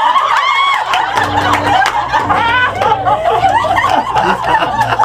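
A small crowd of party guests laughing and chattering at once, many voices overlapping with bursts of laughter.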